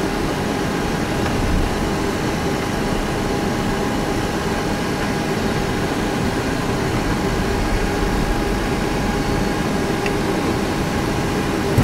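Boeing 737 flight-deck noise while taxiing with the engines at idle: a steady rush of air and engine hum with a few constant whining tones.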